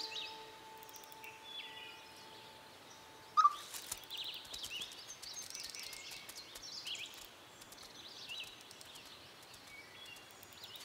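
Woodland ambience with scattered short, high bird chirps and calls over a faint hiss. A held musical note fades out in the first few seconds, and a single sharp call about three and a half seconds in is the loudest sound.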